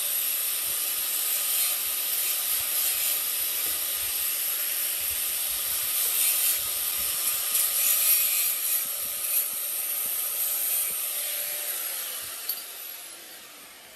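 A power tool abrading metal: a steady, high hissing grind that dies away over the last few seconds.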